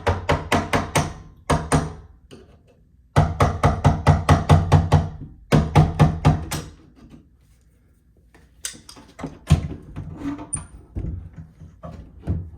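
Hammer tapping out door hinge pins: runs of quick ringing strikes, about six a second, with pauses between them and sparser taps near the end.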